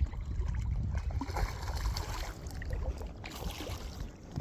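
Wind rumbling on the microphone, with small splashes of water now and then as a small hooked trout is played in at the water's edge.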